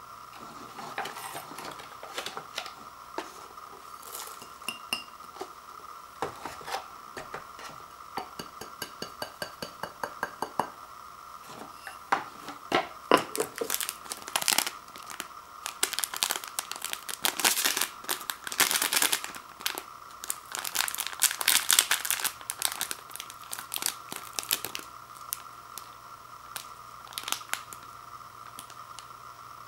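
An instant-ramen soup base packet crinkling in the hands and being torn open, in many quick crackles and rustles that are loudest in the middle; before that, a run of small clicks and taps from handling the packets. A steady faint hum sits underneath.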